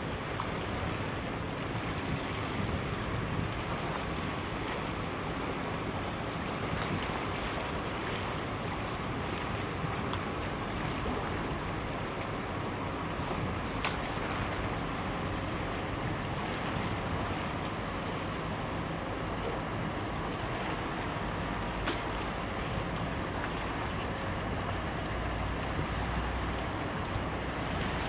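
Steady wind and water wash with the low drone of a large container ship passing close by. Wind buffets the microphone in a low rumble near the end.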